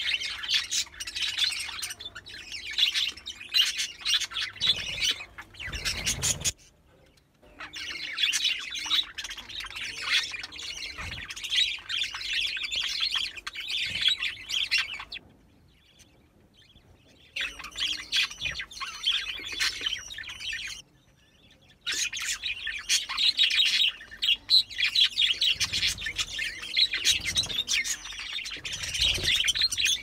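Budgerigars chattering and chirping in a busy, continuous stream of rapid high notes, which breaks off abruptly three times before starting up again.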